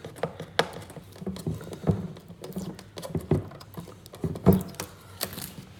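Hands working open a taped-up shipping package: irregular taps, knocks and short scrapes and rustles, with a louder knock about four and a half seconds in.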